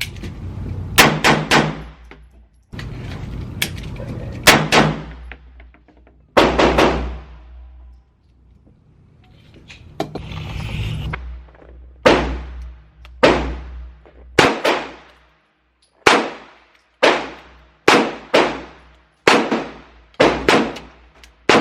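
Gunshots fired at a shooting range: a string of single, irregularly spaced shots, some in quick pairs, each with a short echoing tail.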